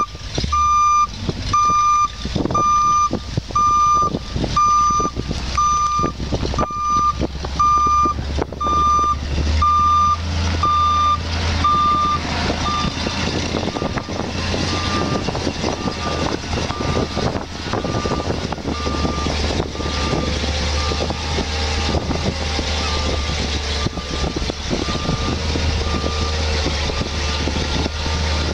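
Reverse alarm on a 1975 Ford tanker fire truck beeping about once a second as the truck backs up, over the steady low running of its engine. The beeping grows fainter after about twelve seconds while the engine keeps running.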